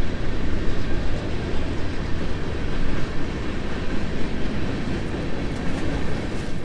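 Freight train passing along the shore: the steady noise of rolling railcars.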